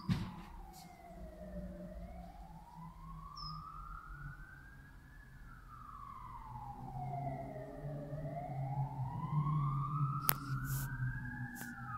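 Emergency-vehicle siren in a slow wail, its pitch rising and falling about every six seconds over a low rumble. A short high bird chirp comes about three seconds in, and a sharp click near the end.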